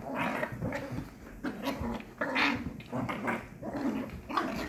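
Two puppies growling at each other in a string of short growls while play-fighting.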